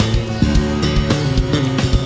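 Live jazz-funk band playing: electric bass lines, drums, keyboards and alto saxophone together, with steady drum hits.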